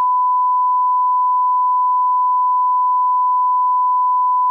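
Loud, steady, single-pitched test-tone beep, the reference tone played with television colour bars.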